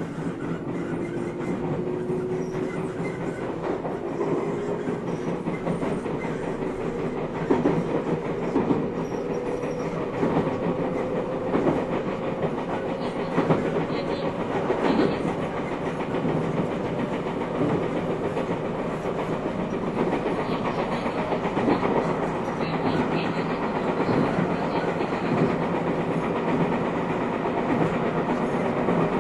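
JR West 221 series electric train heard from inside its motor car, running along the track with a whine that rises steadily in pitch over the first half and then holds, as the train picks up speed. Sharp clacks of the wheels over rail joints come at irregular intervals through the second half.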